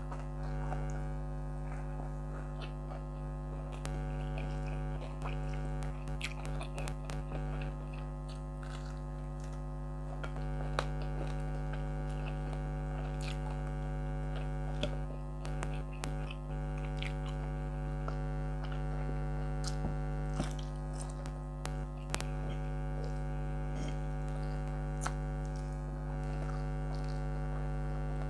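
An air conditioner running with a steady hum throughout. Chewing and small clicks of eating by hand sound over it.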